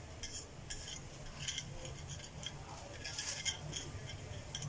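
Scattered light clicks and scrapes of small hard parts of a mixer grinder being handled and cleaned of dust, over a steady low hum.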